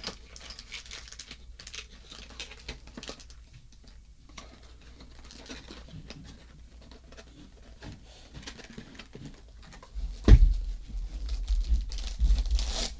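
Packaging being handled and opened, with faint rustling and small clicks, then a thump about ten seconds in followed by louder crinkling and tearing.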